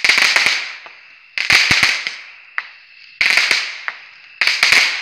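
Consumer aerial fireworks going off in quick succession: four loud reports about a second and a half apart, each a sharp bang with a few crackling pops and a fading hiss.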